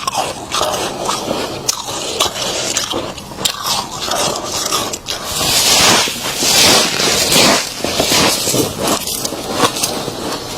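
Thick freezer frost being scraped and bitten: dense crunching and crackling, with a louder hissing scrape from about five to seven and a half seconds in.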